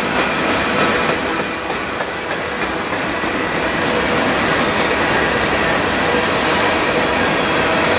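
Covered hopper cars and then tank cars of a mixed freight train rolling past, giving steady wheel-on-rail noise.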